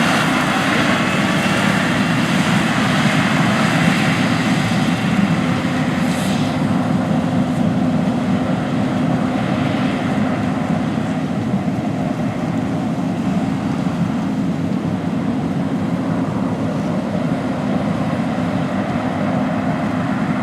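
John Deere S690 combine harvester running at close range: a steady, loud machine drone of engine and threshing, growing a little duller after about six seconds.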